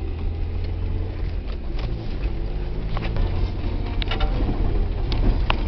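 Four-wheel-drive vehicle's engine running with a steady low drone, heard from inside the cabin, with scattered knocks and rattles as it bounces along a rutted snowy forest track.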